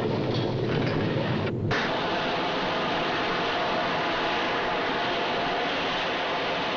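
Oil well blowing out: a deep rumble cuts off about a second and a half in, and a steady rushing roar of gas and mud spraying from the wellhead follows.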